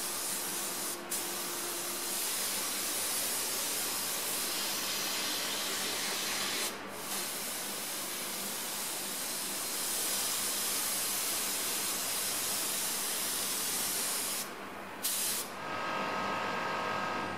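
Air-fed paint spray gun hissing steadily as it sprays high build primer at low pressure, with a few brief breaks. Near the end a steady pitched hum comes in under the hiss.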